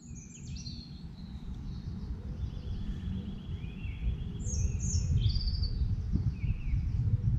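Woodland birds singing short chirping phrases over a low rumbling noise that grows steadily louder.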